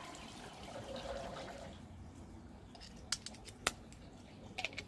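Light handling of a Klein interchangeable multi-bit screwdriver. A few sharp small clicks come as its bits are moved and swapped: two clicks a little over half a second apart, then a quick cluster near the end.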